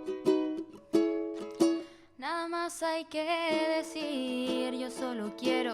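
A song with a plucked-string accompaniment of ukulele-like picked notes. About two seconds in, a voice starts singing a melody with vibrato over it.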